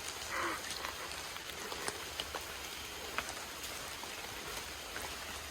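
Steady hiss of rain with many small scattered drop ticks, over a faint steady high tone.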